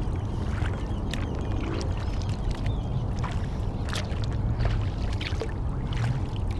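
Kayak paddle strokes: the blades dip and splash, with water dripping and trickling off them in scattered small splashes, over a steady low rumble.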